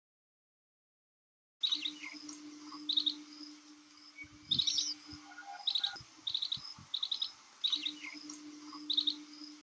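Green bee-eater calls: clusters of short, rapid trilled notes repeated every half-second to a second, with a low steady hum beneath. The calls start after about a second and a half of silence.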